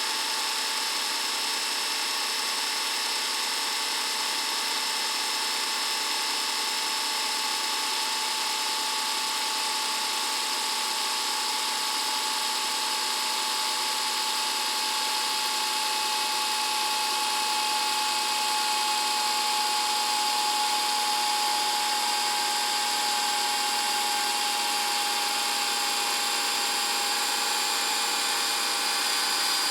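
VHS videocassette recorder's motor winding the tape at high speed with a steady whir. A high whine sits over it and sinks very slightly in pitch.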